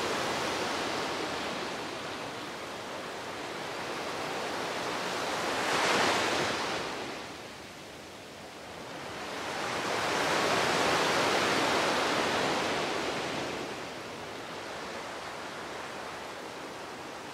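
Sea waves washing onto the shore, swelling and receding: one wave breaks sharply about six seconds in and a longer one rolls in and draws back a few seconds later.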